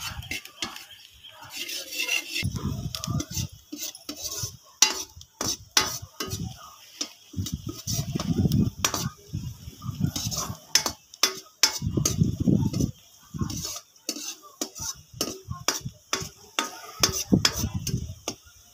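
A steel ladle and spatula scraping and clinking against a wok while stirring onion, garlic and green chilli frying in oil, with many sharp clinks and a faint sizzle underneath.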